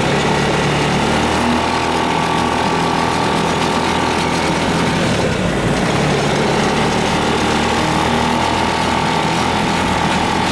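Engine of an off-road ATV buggy running steadily as it drives along a rough dirt road, with a steady whine in the engine note.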